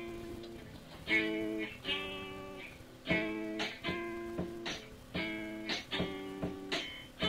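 Guitar strumming chords, a strum or a pair of strums about every second, each chord ringing out and fading, heard through an old cassette recording.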